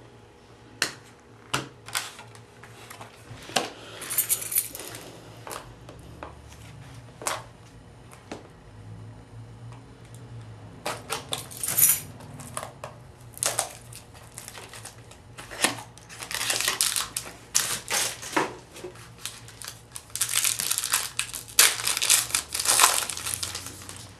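Trading cards and their foil pack wrappers being handled: sharp clicks and taps of cards, with several bursts of crinkling and tearing wrapper, the longest near the end.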